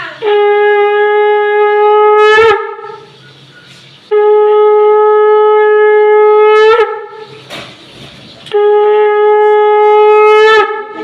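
Conch shell (shankha) blown in three long blasts of about two to two and a half seconds each. Each blast holds one steady note, then jumps sharply upward in pitch as it ends.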